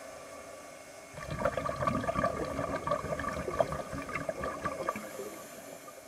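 Scuba diver's exhaled breath bubbling out of the regulator, heard underwater: a gurgling rush of bubbles that starts about a second in and lasts about four seconds, over a steady hum.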